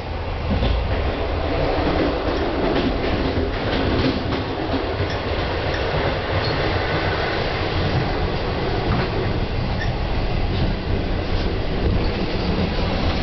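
Train running on its rails: a steady, loud rumble of wheels on track with scattered rattling clicks, getting louder about half a second in.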